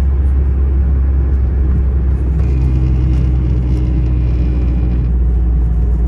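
Steady low road rumble inside a moving car: engine and tyre noise while driving along a paved road. A faint steady hum joins for a couple of seconds in the middle.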